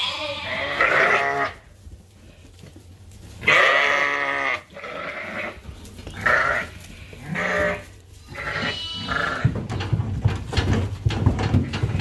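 Sheep bleating, several loud separate calls, as ewes are let out of a livestock trailer. Low irregular knocking and rumbling sets in over the last couple of seconds.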